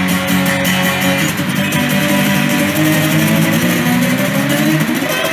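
Acoustic guitar being played, several notes ringing together.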